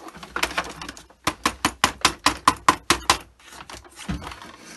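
A quick run of sharp plastic clicks and taps, about seven a second for a couple of seconds, as the Dyson DC39's plastic duct and hose parts are handled, with softer clicking before and after.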